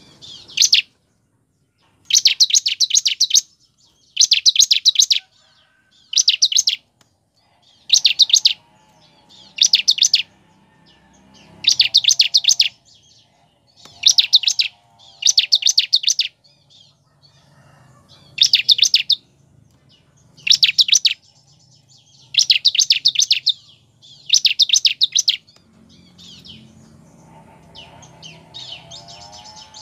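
Bar-winged prinia (ciblek) singing: short bursts of rapid, high-pitched trilled notes, about one every two seconds, breaking into softer scattered notes near the end.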